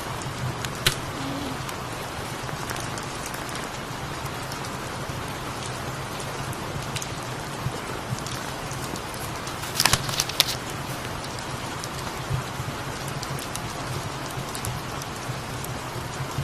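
Steady rain falling, with a low steady hum underneath. There is one sharp click about a second in and a short cluster of sharp crackles about ten seconds in.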